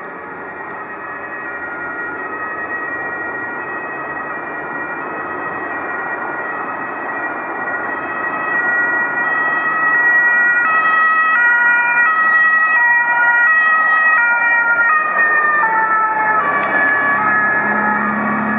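Fire engine's two-tone siren alternating between a high and a low note, growing louder as it approaches. Its pitch drops as it passes.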